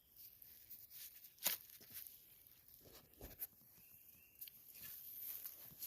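Faint digging in soil with a hand digging tool: a few short scrapes and thuds as the ground is cut open to recover a metal detector target.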